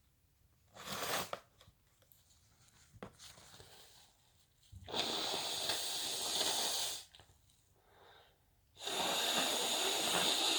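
A person with the sniffles making breathy nasal noises: a short sharp burst about a second in, then two long, hissy blasts of about two seconds each.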